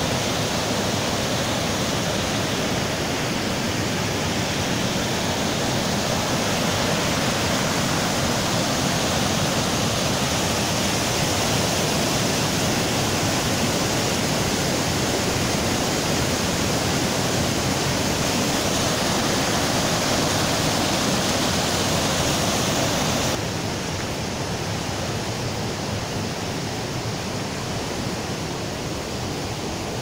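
Fast mountain stream rushing over rocks in whitewater rapids, a steady unbroken roar of water. About three-quarters of the way through it suddenly becomes quieter and duller.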